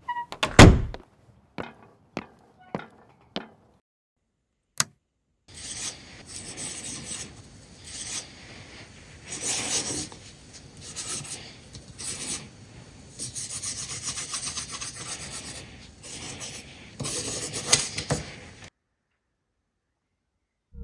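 A graphite pencil drawing on paper: steady scratching strokes with short pauses between them. This is preceded by several sharp taps, and the drawing stops a couple of seconds before the end.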